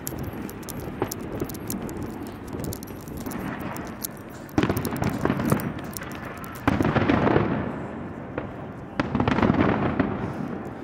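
New Year's fireworks going off: quick crackling at first, then three loud bursts about two seconds apart, each dying away over a second or so.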